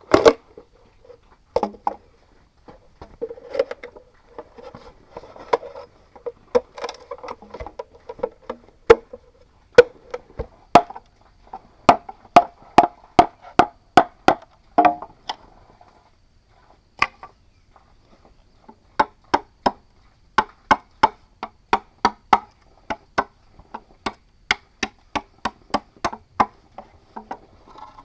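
Bamboo being chopped with a blade: sharp, hollow-sounding strikes, a few scattered at first, then runs of about two to three a second, with a pause of a few seconds between two runs.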